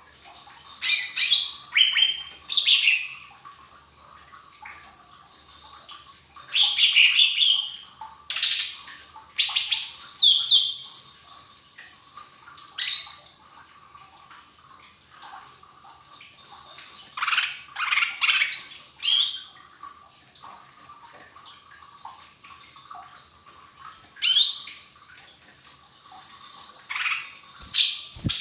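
Cucak ijo mini (a small leafbird) calling in short clusters of sharp chirps and squawks that sweep quickly in pitch, a fresh burst every few seconds with quieter gaps between.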